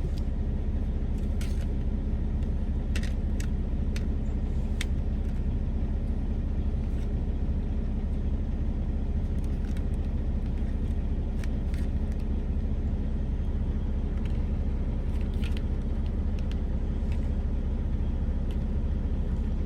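Steady low hum of an idling truck engine. A few light clicks and scrapes come from food being moved between containers.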